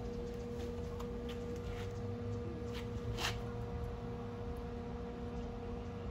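Steady electrical hum of a wire-feed MIG welder switched on and ready, before any arc is struck. A few light clicks, and one sharper click about three seconds in, come from the gun and workpiece being set in place.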